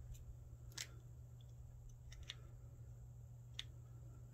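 Near silence with four faint clicks and taps of makeup bottles being handled, the first about a second in and two close together near the middle.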